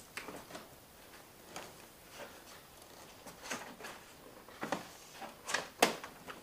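Scattered light knocks and clicks as a new rubber cargo hatch seal on a C5 Corvette is pushed and worked by hand onto the edge of the hatch opening, with a few sharper knocks near the end.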